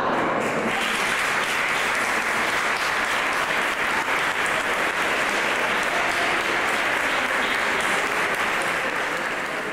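Congregation applauding, a steady even clatter of many hands that begins to die away near the end.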